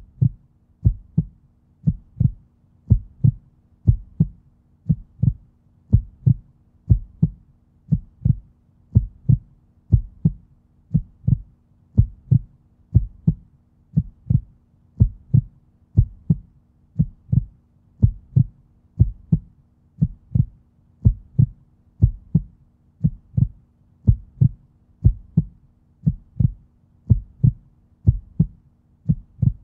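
Deep, heartbeat-like bass thumps in the soundtrack, about one a second and often doubled, over a faint steady low hum.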